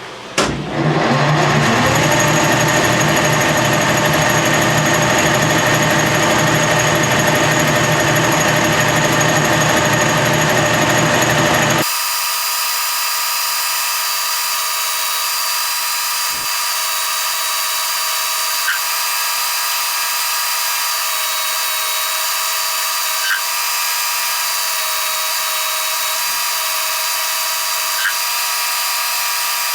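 Milling machine starting with a sharp click, its spindle rising in pitch as it spins up, then running steadily while cutting steel. About twelve seconds in, the sound changes abruptly to a higher, thinner steady running sound with a few faint ticks.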